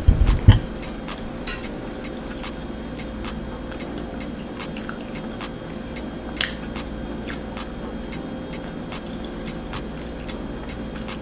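A person chewing and eating a pulled pork sandwich, with small wet mouth clicks, opening with a few dull thumps.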